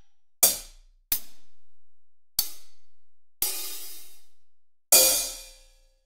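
Drum-kit one-shot samples played one after another: five separate bright, cymbal-like hits, each ringing and fading out, with short silences between them. The last two ring longest.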